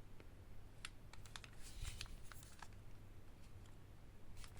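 Faint, scattered light clicks and taps of an airsoft pistol being handled and set down on a table.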